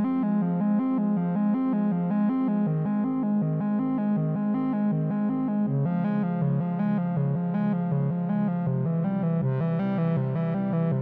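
Electronic background music: a synthesizer plays a quick repeating pattern of short notes over an alternating bass line, which shifts lower about halfway through.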